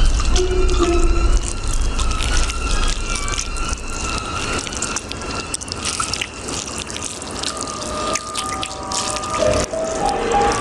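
Camel spider chewing its prey: a dense run of small wet clicks and crunches, over soft background music whose sustained notes grow toward the end.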